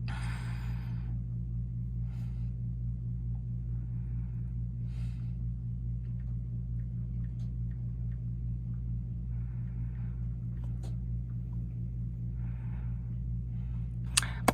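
A steady low machine hum, with a few faint, brief ticks over it.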